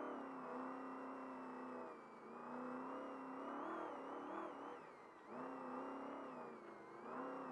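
Trophy Truck engine heard from inside the cab, its revs rising and falling with the throttle. The revs drop off about two seconds in and again about five seconds in, then pick back up each time.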